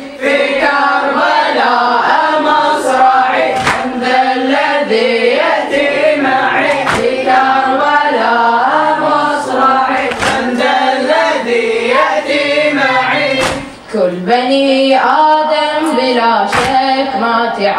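A group of boys chanting a Shia mourning elegy (latmiya) together, unaccompanied, to a steady sung melody. Sharp slaps come every second or two, the beat of hands striking chests.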